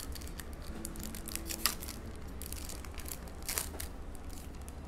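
Foil trading-card pack (2023 Select UFC Hobby) being torn open and crinkled by hand. A run of sharp crackles and rips, loudest about one and a half seconds in and again about three and a half seconds in.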